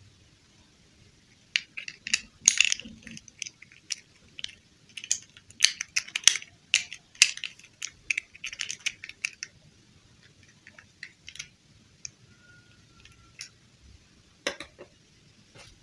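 Hands handling small plastic dolls and doll clothes, fitting a clip-on plastic dress onto a small doll: a dense run of quick plastic clicks, taps and rustles starting about a second and a half in and lasting some eight seconds, then a few scattered clicks and a knock near the end.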